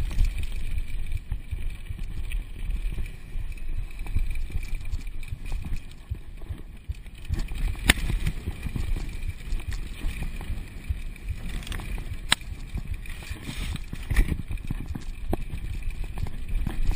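Downhill mountain bike riding over a rough dirt trail: wind buffeting the camera microphone and the bike rattling over the ground, with sharp knocks about eight and twelve seconds in.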